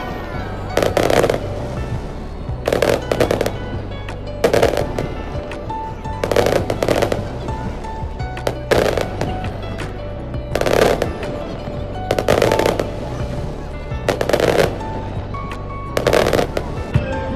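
Fireworks display with background music: aerial shells bang sharply about every two seconds, each with a short echoing tail, over steady music.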